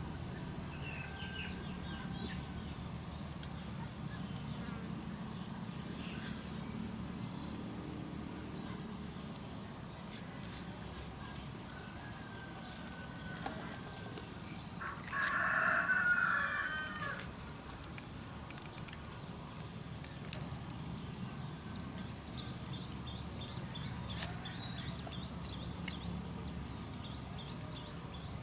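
A rooster crows once, about halfway through, for about two seconds, over a steady high-pitched insect drone.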